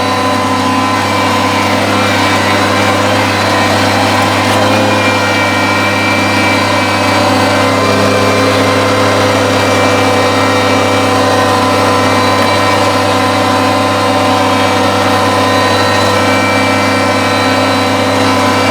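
Kubota compact tractor's diesel engine running steadily while driving its 45-inch front snowblower.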